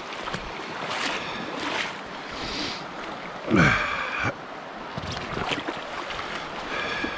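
Steady rush of creek water, with wind on the microphone, broken by several brief splashes or knocks.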